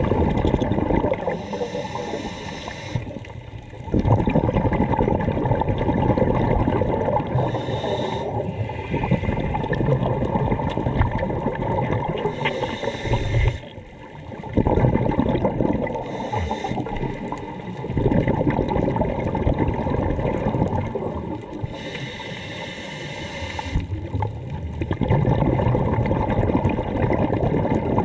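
A scuba diver breathing through a regulator underwater: a short hissing inhale, then a long rush of bubbling exhale, several breaths in turn.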